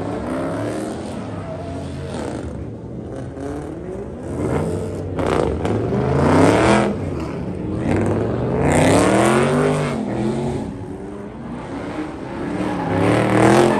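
Car engine revving hard with its rear tyres spinning through a burnout/donut. The revs sweep up and down several times, loudest near the end.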